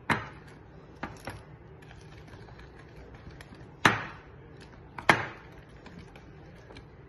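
A spoon knocking against a glass bowl while stirring and beating a soft milk-powder dough: five sharp clinks at irregular intervals, the two loudest about four and five seconds in.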